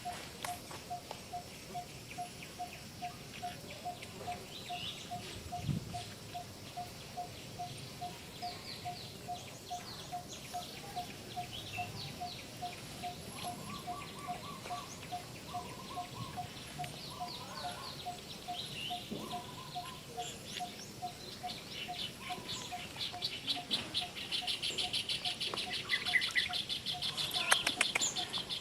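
Birds calling: one repeats a short, steady note about twice a second, other high chirps come and go, and a dense, rapid chirring sets in near the end.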